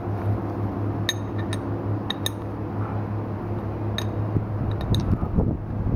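A steel wheel-balancer adapter plate and its studs clinking lightly several times as it is handled, over a steady low hum.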